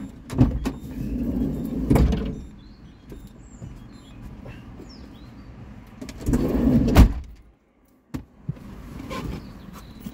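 Van doors opening and shutting as someone climbs out and back in: heavy thuds about half a second in, at about two seconds and a loud one at about seven seconds, with shuffling and rustling between.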